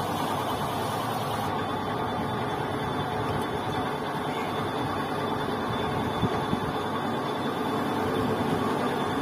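Steady mechanical running noise from workshop machinery, with a single faint click about six seconds in.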